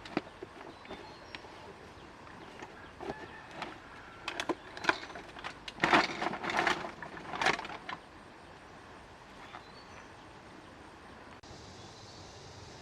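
Irregular knocks and clatters, thickest and loudest between about six and eight seconds in, then only a low steady background.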